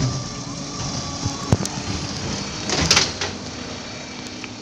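Mack LR garbage truck with a McNeilus Zero Radius rear-loader body, its engine running steadily. A sharp knock comes about a second and a half in, and a short hiss about three seconds in.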